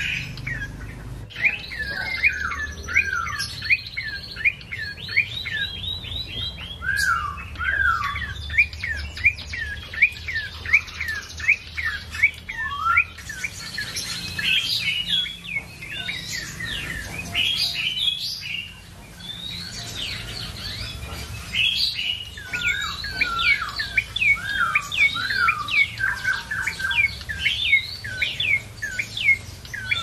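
Caged tailorbird (cinenen merah) singing vigorously: a long run of sharp, quick chirps, several a second, with a short pause about two-thirds of the way through.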